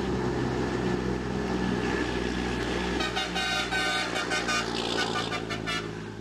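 Heavy truck traffic running on a wet road with a steady engine drone. About halfway through, a vehicle horn sounds in a rapid series of short blasts for a few seconds.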